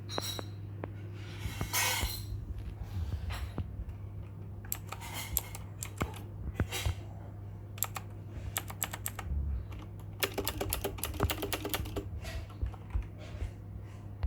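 Typing on a Havit KB498L mechanical keyboard with clicky blue switches: irregular key clicks in clusters, with a fast run of keystrokes about ten seconds in, over a steady low hum.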